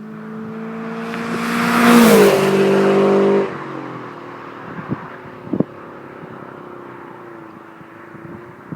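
Scion FR-S's flat-four boxer engine, breathing through Borla unequal-length headers, an HKS front pipe and a Greddy exhaust, pulling under throttle with the exhaust note building loud. Its pitch dips slightly a little after two seconds, then the throttle is lifted at about three and a half seconds and the engine falls back to a quieter, steady drone.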